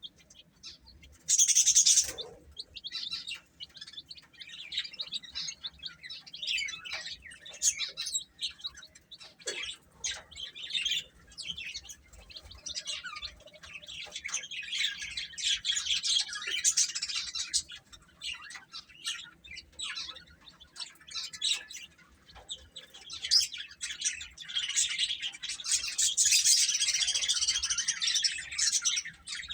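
A group of baby chicks peeping continuously in many short high chirps, thickest around the middle and again near the end. A short loud burst of noise stands out about a second and a half in.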